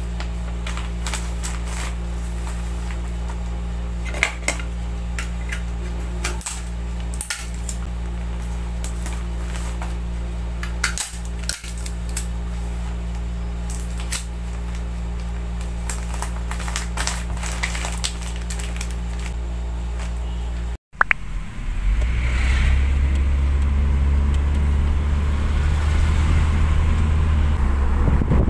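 Small handling noises of packing a parcel, crinkles and clicks of a paper receipt, a plastic mailer bag and clear tape, over a steady low hum. About 21 seconds in it cuts to the louder, steady low rumble of a moving car with wind noise.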